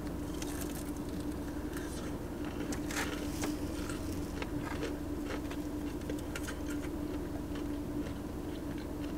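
Close-miked chewing of a breaded chicken tender, with irregular small crunches and clicks, over a steady low hum.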